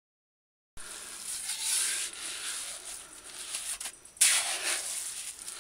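Trowel scraping and turning damp, firm sand-and-white-cement mortar in a wheelbarrow: a gritty rasping that starts about a second in, with a sharper, louder scrape a little after four seconds.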